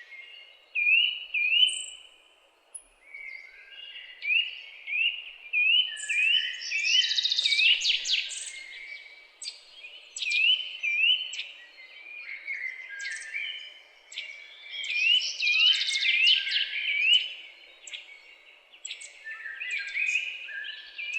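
Several songbirds chirping and singing over one another. Runs of short rising notes, a few a second, mix with fast high trills, over a faint steady background hiss.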